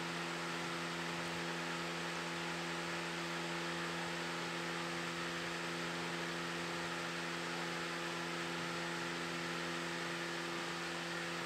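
Steady background hum made of a few low, even tones over a faint hiss, unchanging throughout.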